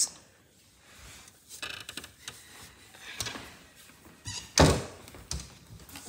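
A few light knocks and one loud thunk about four and a half seconds in, from a cabinet drawer being opened and shut.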